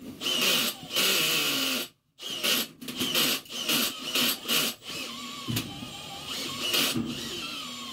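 A small power tool's motor whirring in short on-and-off spurts, with a brief dropout about two seconds in, then running more steadily from about five seconds in.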